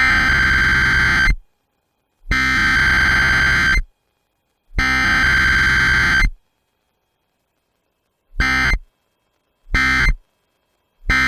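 Emergency Alert System SAME data tones: three harsh, buzzy digital bursts of about a second and a half each, encoding the alert header, then three shorter bursts, the end-of-message code.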